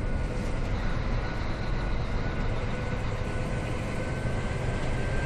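Scania R420 truck's straight-six diesel engine running steadily on the move, heard from inside the cab, with road and tyre noise and a faint steady whine.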